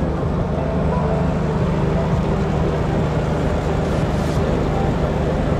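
Vehicle engine running steadily at an even low drone.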